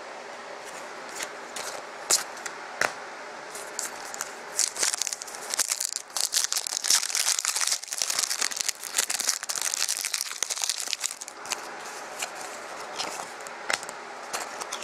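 Wrapper of a Panini Contenders hockey card pack being torn open and crinkled, densest from about four to eleven seconds in, with scattered clicks of cards being handled before and after.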